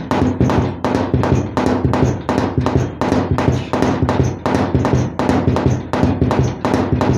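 A dhol drum playing a fast, steady beat of repeated low-pitched strikes.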